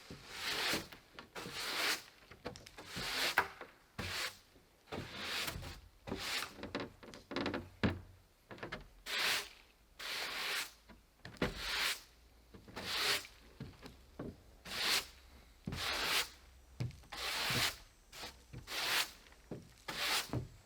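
Repeated scraping or rubbing strokes on wood, coming roughly once a second and each lasting under a second, as in hand-sawing, sanding or scraping.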